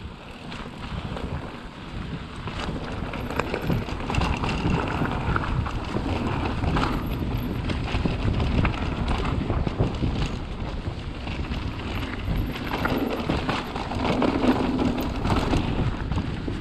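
Haibike XDURO Nduro e-mountain bike ridden down a rough trail: wind buffets the action-camera microphone over a steady clatter of tyres, chain and frame on stones and roots, with many small knocks throughout.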